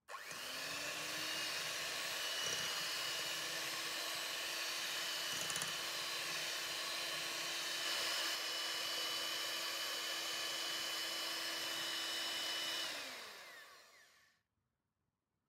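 Electric hand mixer running, its beaters whisking eggs and sugar in a glass bowl. The motor spins up over the first second or so, holds a steady whine, then winds down and stops near the end.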